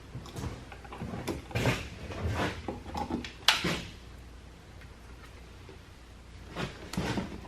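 Rummaging and handling noise: scattered clicks, knocks and rustling, with one sharp click about three and a half seconds in, then a quieter stretch before a few more knocks near the end.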